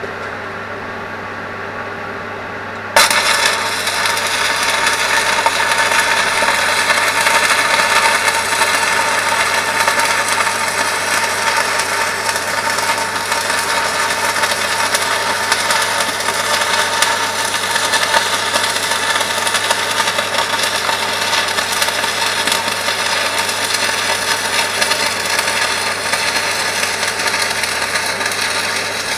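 Angle grinder grinding metal, starting suddenly about three seconds in and running steadily on, over a low steady hum.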